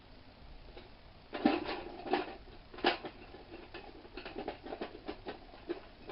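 Metal parts and tools being handled during brake caliper work: three sharper clinks and knocks about one and a half to three seconds in, then a run of quicker, lighter taps.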